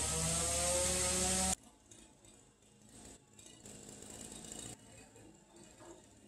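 A steady machine hum with slowly rising tones, which cuts off abruptly about a second and a half in, followed by faint ticks and handling sounds.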